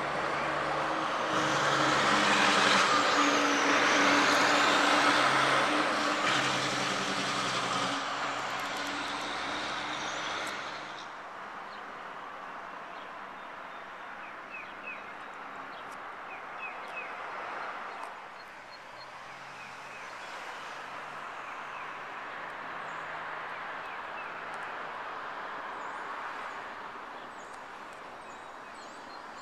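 A motor vehicle going past: engine and road noise swell over the first few seconds, peak, then fade away about a third of the way through. After that, quieter outdoor ambience with a few bird chirps and a second, fainter vehicle passing.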